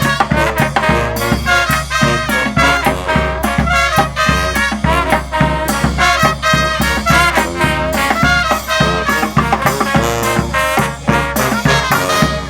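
Live street brass band playing an upbeat tune, horns over a steady drum beat.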